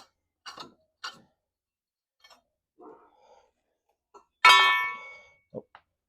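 Loose steel suspension hardware and hand tools being handled: a few light metal clicks, then a loud metallic clang about four and a half seconds in that rings briefly before fading.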